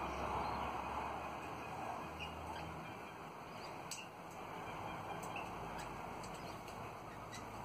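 Twenty-eight parrots (Australian ringnecks) feeding in a tree, giving scattered short, high chirps and ticks over a steady background noise.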